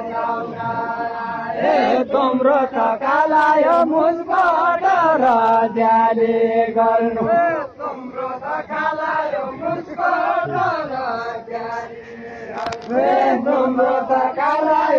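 A large group of men chanting a Nepali folk song together in long drawn-out phrases, the voices sliding between held notes, with brief breaks between phrases about eight and twelve seconds in.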